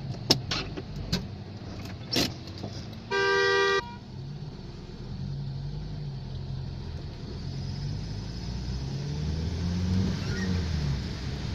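Traffic heard from inside a car in the rain: a steady low engine rumble with a few sharp taps in the first couple of seconds, then a single car horn blast of under a second about three seconds in. A hiss grows louder over the second half.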